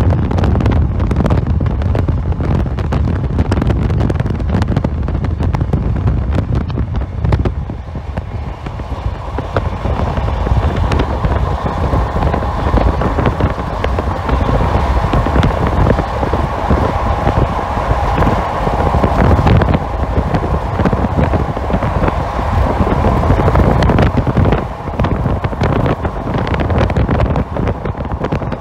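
Heavy wind buffeting on the microphone from a moving car, with road rumble. A steadier hum in the middle range sits under it from about ten seconds in until about twenty-four seconds.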